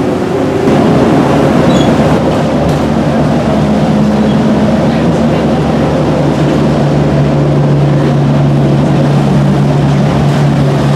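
Bus engine and road noise heard from inside the bus as it drives, growing louder about a second in; a steady low engine hum settles in about halfway through.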